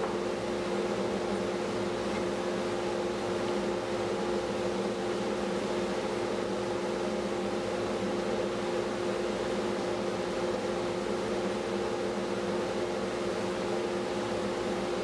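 Steady mechanical hum from a running workshop machine, constant in pitch and level.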